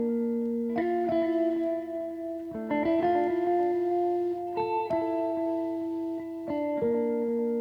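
Background music: a guitar playing held chords that change about every second or two.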